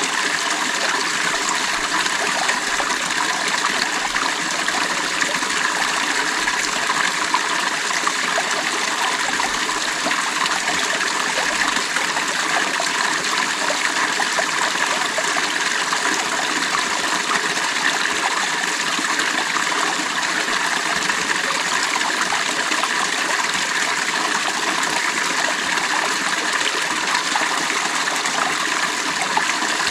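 Creek water flowing and babbling over rocks in a steady rush, with fine splashing and trickling detail.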